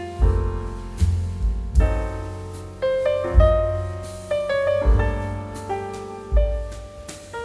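Background piano music: a melody of struck notes that ring and fade, over deep bass notes.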